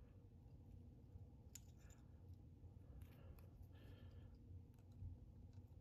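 Near silence, with a few faint clicks from fingers working thread and wire at a fly-tying vise.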